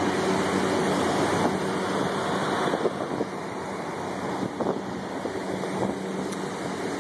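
Wind buffeting the microphone, rising and falling in gusts, over a steady low hum.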